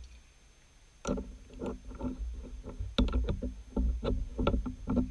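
Irregular metal clanks and knocks from a lathe tool holder being seated on the tool post and tightened with a wrench, starting about a second in, with low thumps mixed in.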